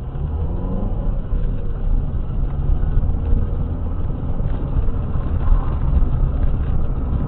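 A car driving, heard from inside the cabin through a dash camera: a continuous low rumble of engine and road noise.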